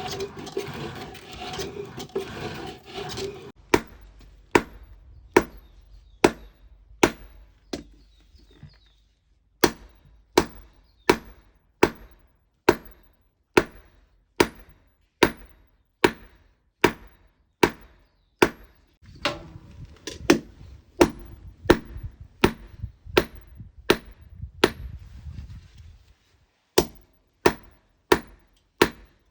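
Hammer blows on an iron bar being forged, struck at an even pace of about one blow every 0.8 seconds, each a sharp ringing strike, with a short pause partway through. A steady rushing noise with a hum comes first, stopping after about three seconds.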